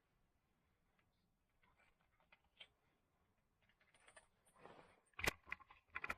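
Near silence, then faint rustling and scattered clicks with a short soft hiss, and a few sharp knocks near the end: handling sounds at a wood stove while the fire is being lit.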